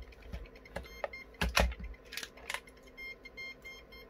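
Cheap DT-1130 electromagnetic radiation detector's alarm beeper sounding a rapid series of short, high beeps from about three seconds in, as it registers a field near a wire. Before that, a few sharp clicks and knocks as the plastic meter is handled.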